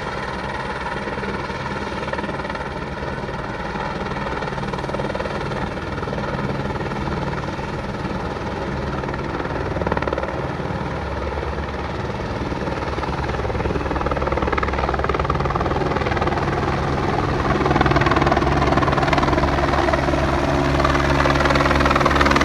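Medical transport helicopter running on a rooftop pad, its rotor and turbine sound steady. The sound grows louder over the last several seconds as it powers up to take off.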